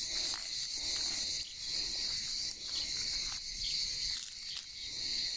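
Steady chorus of crickets, a continuous high-pitched trill, with a few faint brief rustles.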